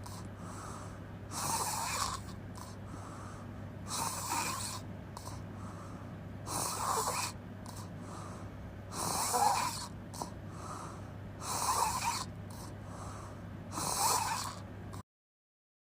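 A person snoring with the mouth open: six rasping snores about two and a half seconds apart, with softer breaths between them. The sound cuts off suddenly near the end.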